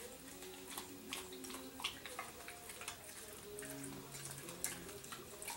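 A pig chewing and smacking on a banana with its peel: a run of faint, irregular wet clicks and smacks.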